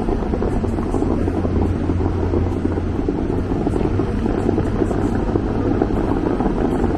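Bellagio fountain water jets, a loud steady rushing spray.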